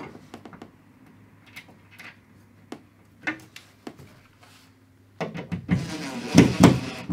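A few light knocks and clicks, then about five seconds in a power drill runs hard for about two seconds, boring one of the holes for the wall-mount brackets.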